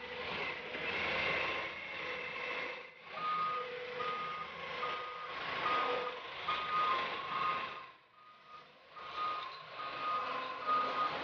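Doosan forklift running, its reversing alarm beeping in an even repeated pattern that starts a few seconds in, breaks off briefly and resumes.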